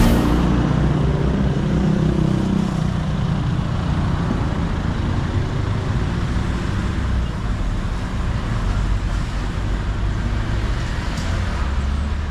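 Steady road-traffic noise with the low rumble of a motor vehicle running close by.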